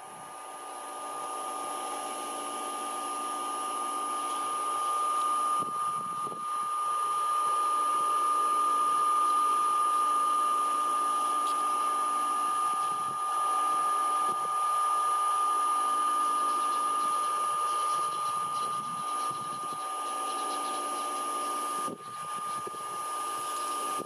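A motor running with a steady high whine over a hiss, building up over the first several seconds and then holding steady, with brief dips about six seconds in and near the end.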